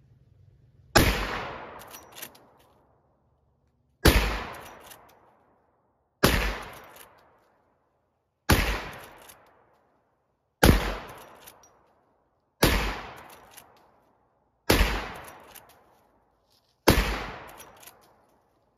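Henry Big Boy .44 Magnum lever-action rifle firing eight shots about two seconds apart, each report ringing off for about a second. It is being test-fired after repair for light primer strikes, and every round goes off.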